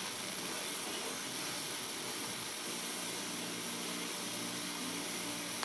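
FM radio static from a portable multiband receiver's speaker tuned to 94.3 MHz: a steady hiss, the sign of a weak, fading signal, with faint tones breaking through about halfway through.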